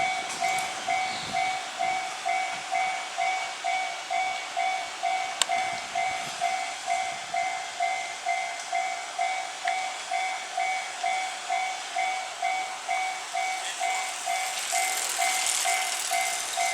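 Japanese railway level-crossing warning bell ringing, an electronic two-tone ding repeating evenly about every 0.6 seconds. Near the end a rushing noise swells over it.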